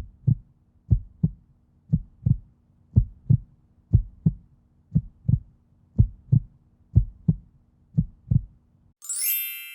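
Heartbeat sound effect: paired low thumps, lub-dub, about once a second over a faint low hum. About nine seconds in it stops and a bright chime rings out.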